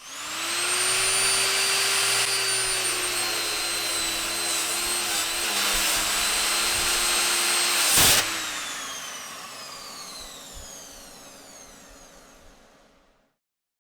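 Angle grinder with a paper cutting disc switched on and spinning up to a steady high whine, with a sharp crack about eight seconds in, then switched off and winding down, its whine falling in pitch as it fades away.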